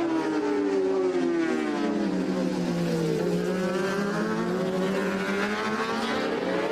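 600cc four-stroke Supersport racing motorcycle engine heard on board: the revs fall steadily for about three seconds as the bike slows, then climb again as it accelerates away, over steady wind and road noise.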